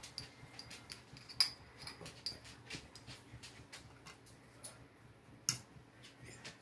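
A metal fork clinking and scraping against a small glass jar while fishing out a sardine: a run of light clicks, with sharper clinks about a second and a half in and again about five and a half seconds in.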